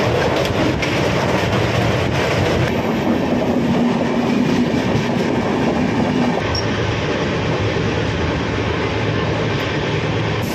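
Indian Railways passenger train running along the track, heard from inside the coach: a loud, steady running noise of wheels and coach. The sound changes abruptly about three seconds in and again past six seconds, with a steady hum in between.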